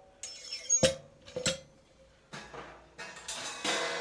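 Metal clinks and knocks as hi-hat cymbals and their stand hardware are handled, with a sharp knock about a second in and another half a second later. Near the end a cymbal is touched and rings on.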